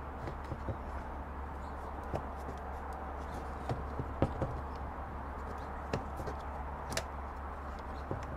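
Faint irregular clicks and light handling as nylon trimmer line is pulled out of a Speed Feed string-trimmer head by hand, over a steady low background hum.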